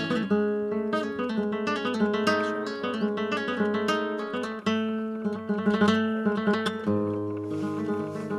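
Background music: acoustic guitar, plucked and strummed in quick rhythmic runs.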